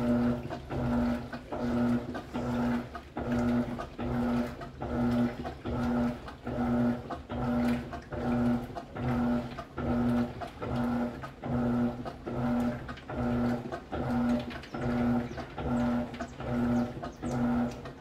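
Electrolux LCA 12 kg top-loading washing machine in its wash cycle, the agitator churning the load in soapy water. The motor hums in short, evenly spaced strokes, about five every four seconds, as the agitator swings back and forth.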